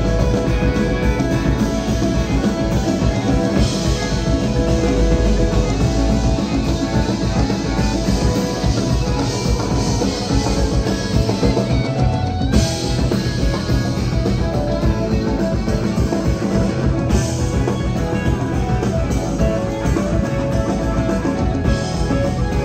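Live rock band playing: electric guitars, bass, keyboard, drum kit and congas together, loud and continuous.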